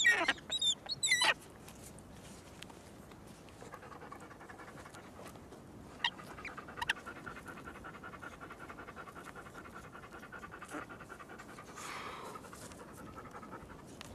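An animal panting steadily, after three short, high wavering cries at the very start, which are the loudest sounds.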